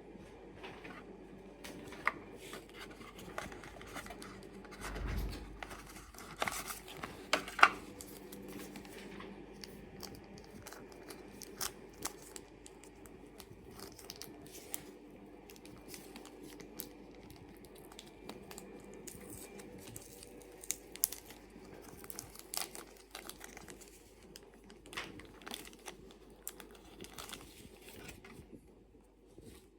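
Packaging of a pair of earbuds being handled and opened: tearing and crinkling of wrapping, with scattered clicks and taps and a low thump about five seconds in.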